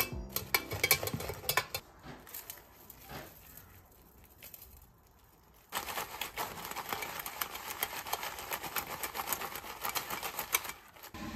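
Tongs and a wire rack clicking as fried churros are moved into a ceramic baking dish. About halfway through, a dense rapid rattle starts as the dish is shaken to coat the churros in cinnamon sugar, stopping shortly before the end.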